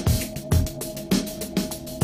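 Electronic background music with a steady drum beat about twice a second over a held synth tone.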